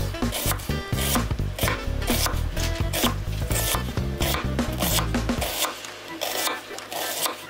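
Chef's knife slicing an onion on a wooden cutting board: a steady run of sharp knocks, several a second, as the blade cuts through the onion and strikes the board.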